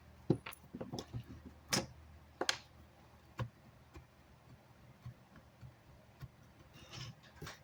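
Irregular clicks and knocks of small metal parts and a screwdriver being handled while a car amplifier is taken apart. The louder knocks come in the first few seconds, with lighter ticks after.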